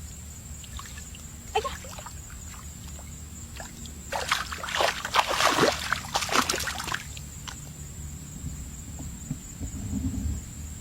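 Muddy water splashing and sloshing, with a few small splashes and then a louder spell of splashing for about three seconds near the middle.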